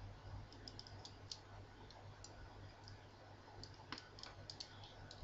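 Very faint, scattered little clicks and ticks as a small plastic heated curler and its cord are handled in the fingers, over a low steady hum. One slightly sharper click comes about four seconds in.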